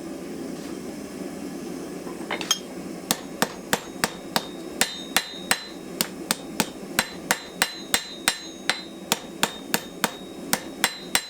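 Blacksmith's hammer striking a hot steel knife blank on an anvil, neatening the freshly trimmed tip of the blade. The blows begin about two and a half seconds in and fall at a steady rhythm of about three a second, some with a short metallic ring.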